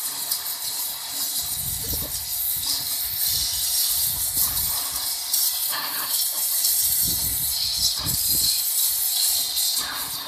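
Bosch 140-bar electric pressure washer running, its jet blasting a brick at point-blank range: a loud, steady hiss of high-pressure spray, with a few irregular low rumbles.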